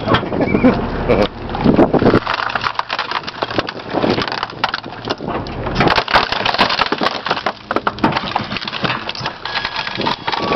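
Garbage truck's compactor blade crushing an old microwave: a continuous loud crackling, snapping and crunching as its casing and parts break up.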